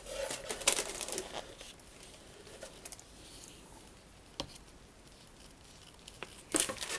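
Paper rustling as a printed instruction booklet is lifted out of a cardboard model-kit box and handled, with a single sharp tap about four and a half seconds in and another short burst of rustling near the end.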